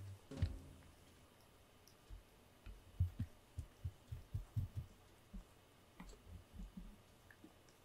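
Faint licking of a cat grooming its fur: a run of soft, quick strokes at about three a second, with a single click just before it begins.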